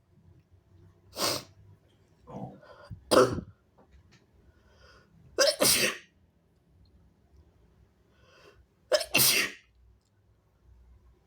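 A person sneezing hard four times in a row, a few seconds apart, with fainter breaths between the sneezes.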